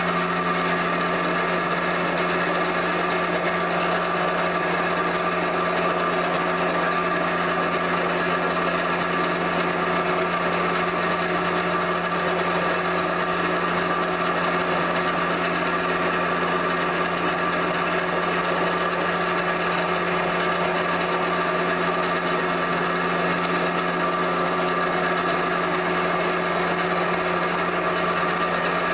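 Clay pug mill's electric motor running with a steady low hum, pushing a log of clay out of its nozzle.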